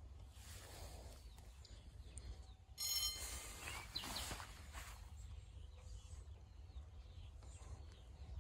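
Outdoor ambience of birds chirping and singing over a steady low wind rumble on the microphone. About three seconds in, a sudden louder noise with a brief high ringing.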